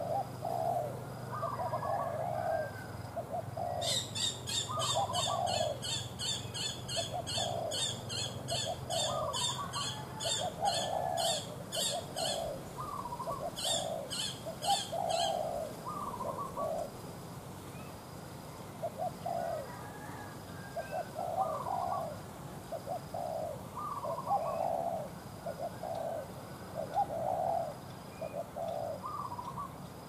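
Spotted doves cooing: short low coos repeated over and over, with a brief lull about halfway through. From about four seconds in, for roughly ten seconds, a fast run of sharp high clicks, about three or four a second, sounds over the cooing.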